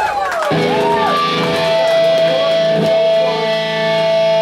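Punk band playing live: electric guitars and bass come in about half a second in on a loud sustained chord that holds and rings out, with wavering higher notes over it.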